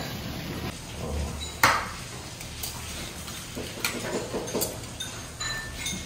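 Tableware clinking and knocking at a breakfast table: a handful of sharp knocks and clinks of dishes and utensils, the loudest about one and a half seconds in, over steady room noise.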